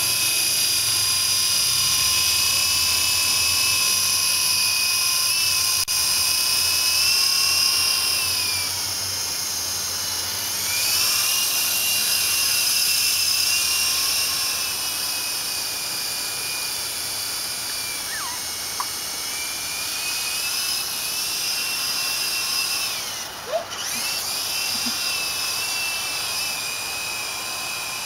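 Small electric coaxial RC helicopter (Odyssey 333 Typhoon) in flight: a steady high-pitched whine of its motors and rotors. The pitch sags and climbs back twice, once about a third of the way in and again briefly shortly before the end, as the throttle changes.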